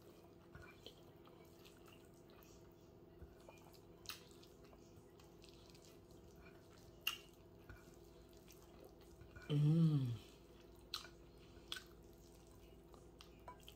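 Eating by hand: scattered sharp, wet clicks and smacks of fingers working through rice and beans and of the mouth, over a faint steady room hum. A short hummed "mm" of the voice comes just under ten seconds in.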